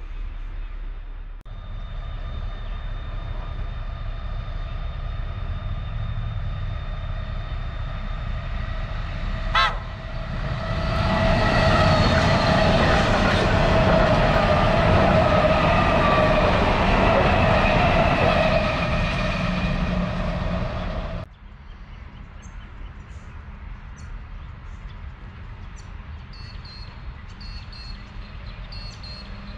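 Train running close by with a steady low rumble. About ten seconds in it grows much louder, with a strong whine of several pitches that falls slightly, and it stops abruptly about twenty-one seconds in.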